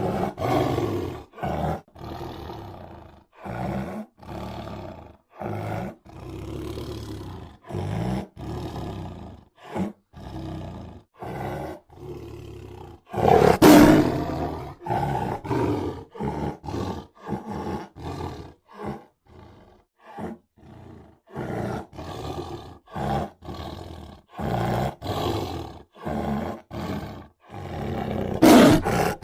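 Tiger roaring: a string of short roars separated by brief pauses, with a louder full roar about halfway through and another near the end.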